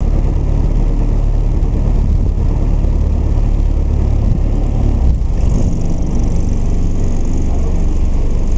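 Motor cruiser's engine running steadily at low speed, a loud low rumble.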